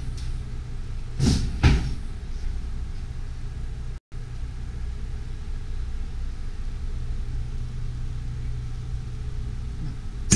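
A steady low rumble of kitchen background noise runs throughout. Two short clatters of utensils come about a second and a half in, and there is a sharp metal click near the end.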